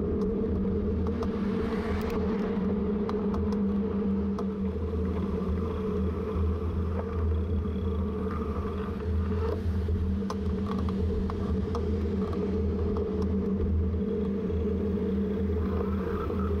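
Steady low rumble of tyre and wind noise from a bicycle on the move, with faint scattered ticks over it.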